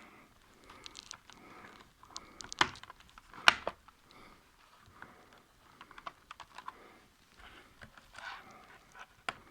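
Small plastic clicks and scraping from a Lenovo ThinkPad T440p's cover being worked back into place with a plastic pry tool, with two sharper clicks about two and a half and three and a half seconds in.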